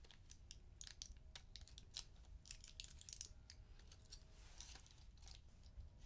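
Faint scattered clicks and crinkling from a small object handled between the fingers, at irregular moments.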